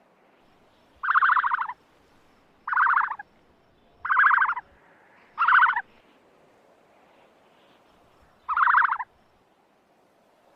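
Ostrich calling: five short, buzzy calls of about half a second each, the first four at fairly even intervals and the last after a longer pause.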